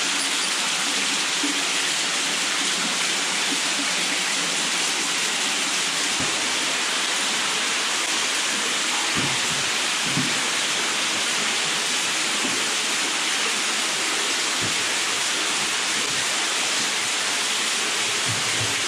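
A small underground waterfall splashing steadily down a limestone cave wall, an even hiss of falling water, with a few soft knocks underneath.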